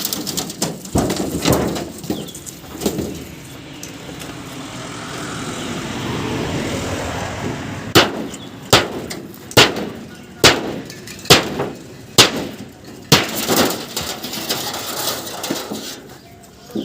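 Hammer blows struck in a steady run, about one a second, after a few seconds of irregular knocking and a swelling rushing noise.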